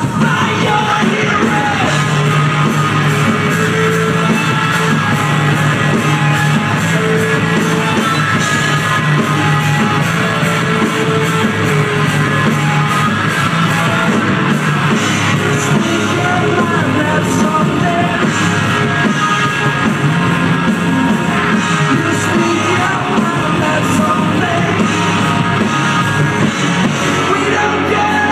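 Post-hardcore band playing live through a large hall's PA: distorted electric guitars and bass holding sustained notes over drums, heard from the back of the audience.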